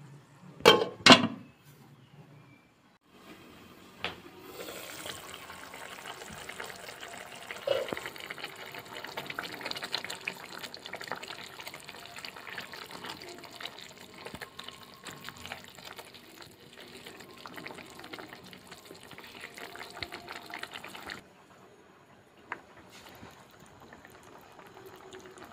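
Thick creamy gravy simmering in a non-stick pan, a steady bubbling crackle as a spatula stirs it. Two sharp knocks come about a second in, and the bubbling turns quieter near the end.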